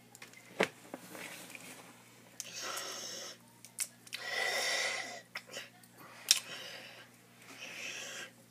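Tortoise biting and tearing at shredded food in a plastic dish, with two sharp clicks and three breathy hissing stretches, each about a second long.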